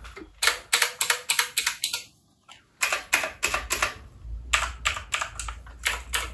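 Keys of clicky blue-switch mechanical keyboards pressed in quick runs of several clicks a second, with a short break about two seconds in.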